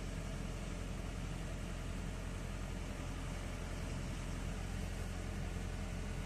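Mini excavator's diesel engine idling steadily, a low even drone.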